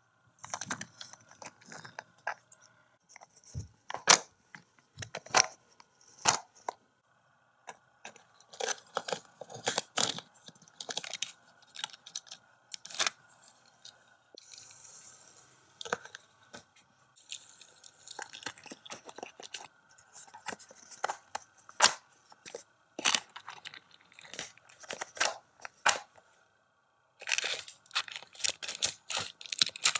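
Hot Wheels plastic playset and die-cast toy cars being handled: scattered clicks, knocks and scraping as the cars are pushed along the plastic track, with a quick run of clicks near the end.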